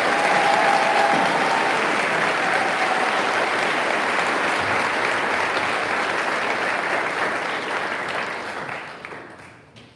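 Audience applauding in a large gym, a steady dense clapping that fades away over the last second or so.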